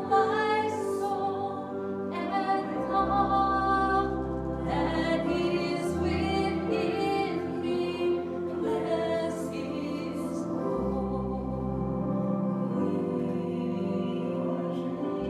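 A song sung with instrumental accompaniment: sung phrases over held low bass notes that change every few seconds.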